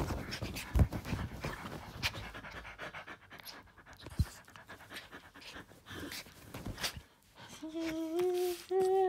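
Small curly-coated dog panting and snuffling while being petted and played with, amid rustling of fur, hands and bedding and a few light knocks against the phone. Near the end come two short voice sounds, each held on one pitch.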